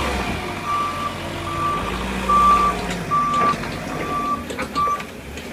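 A vehicle's reversing alarm beeping six times, about once a second, at one steady pitch over a low engine rumble.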